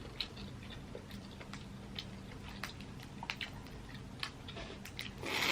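Crawfish eating: scattered small clicks and cracks of shells being broken and peeled, with soft mouth sounds, and a louder rustling burst near the end.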